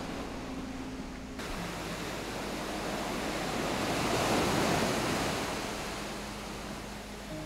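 Ocean surf breaking and washing up a sand-and-pebble beach, the rushing swell building to its loudest about four seconds in and then easing as the water draws back.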